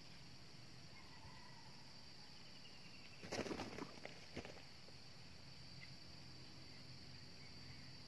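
Steady high insect buzzing in the background, broken about three seconds in by a short flurry of rustling noise and a single brief one a second later.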